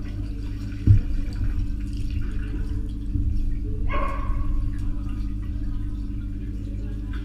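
Muffled underwater pool sound: water sloshing and bubbling over a steady low hum as a dog swims, with a sharp knock about a second in and a brief muffled call about four seconds in. Heard with the microphone underwater.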